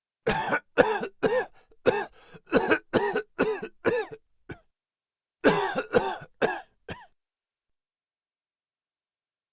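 A man coughing hard with a dry, forced cough: a fit of about eight quick coughs, then after a short pause a second burst of four, ending about seven seconds in.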